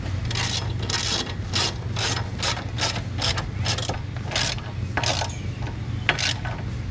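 Hand socket ratchet clicking in short repeated strokes, about two a second, while tightening bolts, with a brief pause near the end.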